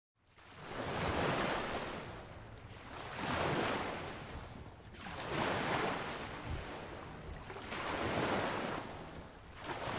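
Ocean waves washing in slow surges, swelling and fading four times, about every two to three seconds, after a brief moment of silence at the start.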